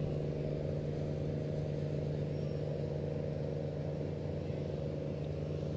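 Large fishing vessel's diesel engine running steadily as the ship comes in slowly to the quay: a constant low hum that holds one pitch throughout.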